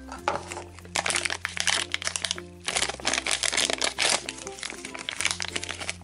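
Plastic blind bag crinkling as it is torn open by hand, in two long stretches, over background music.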